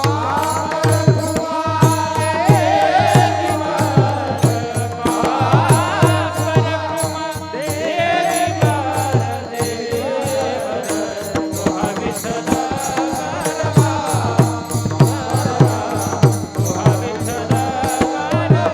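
Kirtan devotional music: a melody with wavering ornaments over a steady drum beat, with small hand cymbals ticking in time.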